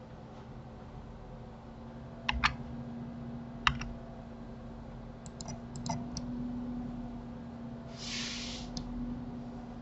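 Computer keyboard and mouse clicks: a pair of clicks about two seconds in, a sharper single click shortly after, then a quick run of lighter clicks, over a steady low hum. A short hiss comes near the end.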